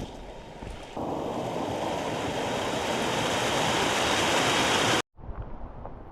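Loud, steady rush of flowing water, starting suddenly about a second in and cutting off abruptly a few seconds later.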